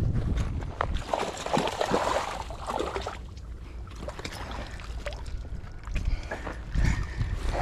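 Water splashing and sloshing as a hooked rainbow trout thrashes at the surface while being played in and netted, loudest in the first few seconds.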